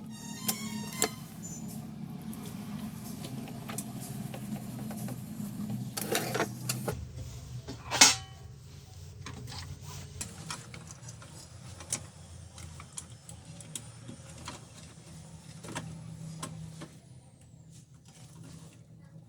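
Canon LBP 2900 laser printer running: a steady low mechanical hum with scattered clicks and one loud sharp click about eight seconds in. The hum stops near the end.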